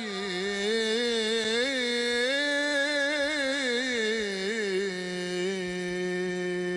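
A solo voice singing a slow, ornamented religious chant, its melody winding through melismas before settling on one long held note for the last two seconds or so.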